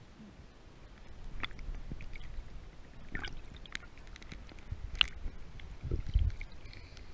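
Underwater water noise picked up through a GoPro's waterproof housing while snorkeling: a low, muffled rumble of moving water from swimming and fin kicks, with scattered short clicks and a few heavier low thumps of water around six seconds in.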